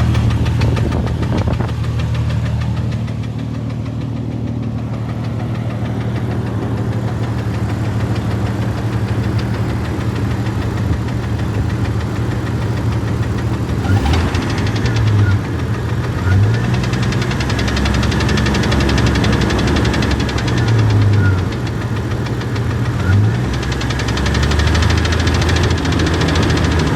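A 1996 Jeep Grand Cherokee's 4.0L straight-six running with a steady low, slow knock. The engine note swells briefly several times in the second half. The knock comes from the #6 piston, whose skirt is broken off in pieces.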